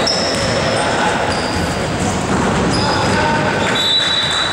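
Sounds of an indoor basketball game: a ball bouncing on the court, short high squeaks of sneakers on the gym floor, and a murmur of players' and spectators' voices in the hall.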